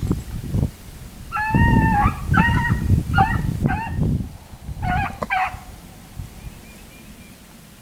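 Beagles baying as they trail a cottontail rabbit: a run of about five short, high bawls in quick succession, loudest in the first few seconds, then the calls stop about five and a half seconds in.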